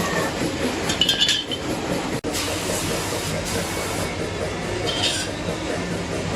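Metal parts clinking against each other a few times, about a second in and again near the end, over steady workshop noise with a low hum.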